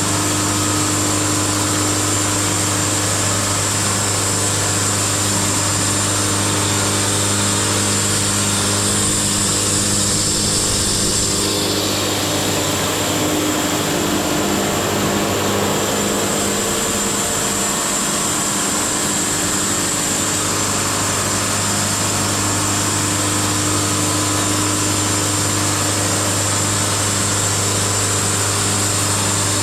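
Wood-Mizer LT70 band sawmill running steadily, a mix of engine hum and high blade whine, with a shift in its sound for a few seconds about halfway through.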